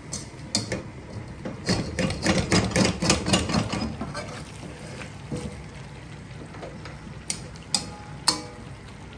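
Metal spatula clanking and scraping against a steel wok as pieces of pork belly are stirred: a quick run of clanks for a couple of seconds, then three single clinks near the end.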